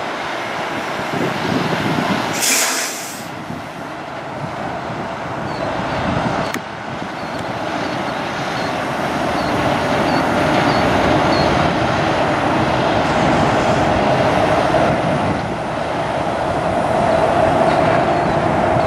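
Kenworth semi tractor's diesel engine running as the truck pulls a loaded lowboy trailer slowly past. There is a short burst of air hiss about two to three seconds in, and a steady whine that grows louder in the second half.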